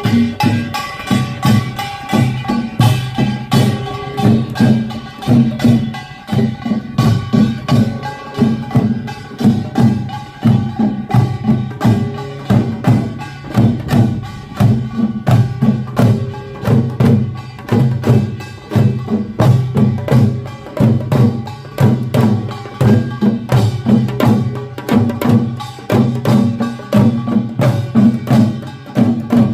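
Korean pungmul band playing: drums and hand gongs beaten together in a dense, steady rhythm, with the ringing of metal gongs over the drum strokes.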